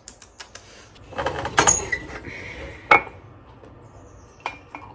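Kitchen clatter of an aluminium moka pot and a mug being handled: small clicks, a busier run of knocks and clinks, and one sharp, ringing clink just before three seconds in.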